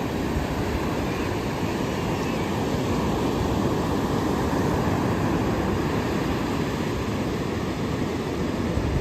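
Ocean surf washing onto the shore in a steady rush of noise.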